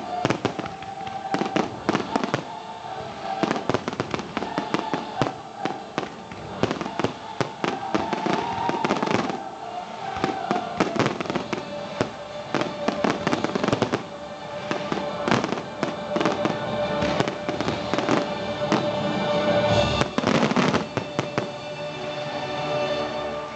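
Fireworks display going off: many bangs and crackles in quick succession, with music playing underneath.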